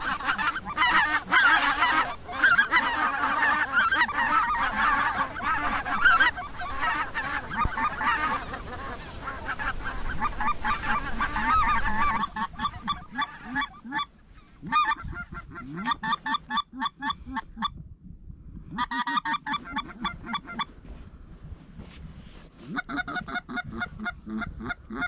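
A flock of greylag geese honking, many calls overlapping in a dense chorus. About halfway through this gives way to runs of short, sharp honks in quick succession, broken by brief pauses.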